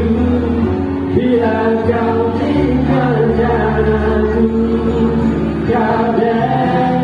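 High school choir singing in several parts, holding long chords over a low sustained bass.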